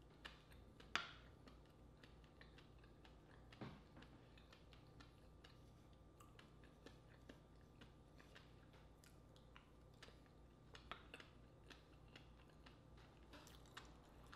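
Faint close-up eating sounds of a baked oyster being chewed: scattered soft wet clicks and ticks from the mouth, with a sharper click about a second in.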